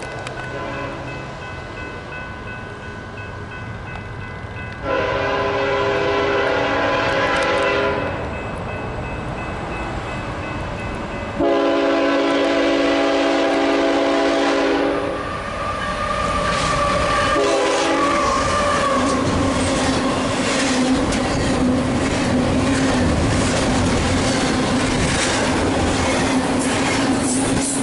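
Locomotive's K5HL five-chime air horn sounding two long blasts and a short one, then a double-stack intermodal freight train rolling past close by, its wheels clicking rhythmically over the rail joints.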